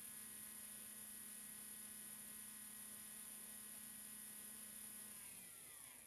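Hobbywing Xerun Bandit 21.5T sensored brushless RC motor spinning unloaded on a motor analyzer during its timing test: a faint steady whine over a low hum. About five seconds in, the pitch falls and the sound dies away as the test finishes and the motor winds down.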